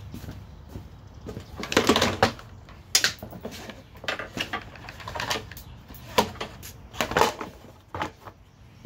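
Husqvarna lawn mower's small single-cylinder OHV engine running cold and rough: a low hum broken by irregular pops and sputters. The sputtering is typical of its slow-acting auto choke, which is still holding the choke closed during warm-up.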